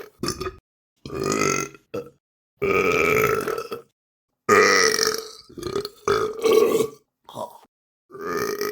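A person burping again and again, about eight burps with short silent gaps between them. Some are brief, others are long drawn-out burps of over a second, the loudest about halfway through.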